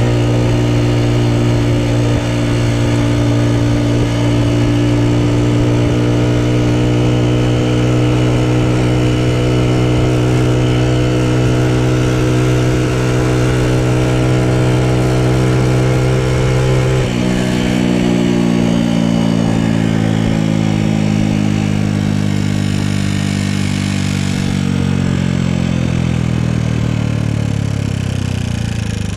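Honda Super Cub's single-cylinder four-stroke engine running at a steady speed on the road. About two-thirds of the way through, its note drops suddenly, then falls steadily as the bike slows. The owner says the engine makes an abnormal noise.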